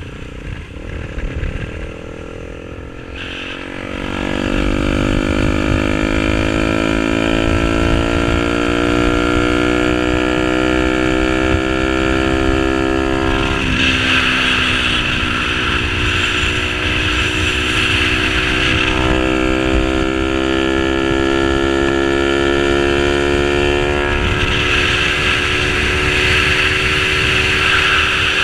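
Yamaha R15 V3's single-cylinder engine through an SC Project aftermarket exhaust, pulling hard: about four seconds in it gets much louder and the note climbs steadily, with a sudden break in the note about halfway through, like a gear change.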